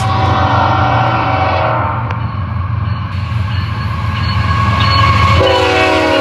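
Freight locomotive's air horn sounding two long blasts, one at the start and another beginning near the end, over the steady low rumble of the approaching diesel locomotive; the horn is sounded for a road grade crossing.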